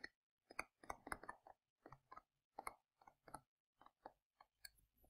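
Faint, irregular taps and scratches of a stylus writing on a tablet screen, a few small clicks a second.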